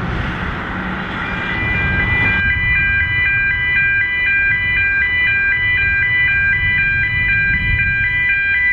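Steam hissing from a narrow-gauge Garratt steam locomotive. After about two and a half seconds it gives way to a road level-crossing warning alarm, a repeating two-tone electronic warble of about two cycles a second, over a low rumble of engines.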